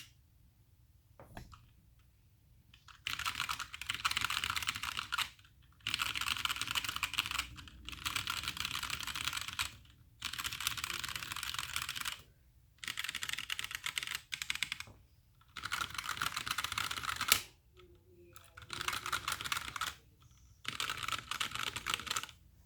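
Typing on a HyperX Alloy Origins Core mechanical keyboard with HyperX Aqua tactile switches: fast runs of key clicks, each lasting one to three seconds, with short pauses between them. The first run starts about three seconds in, and one key strike partway through stands out sharper and louder than the rest.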